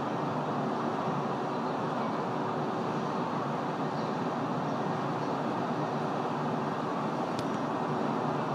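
Steady city traffic noise, a constant hum with no distinct events.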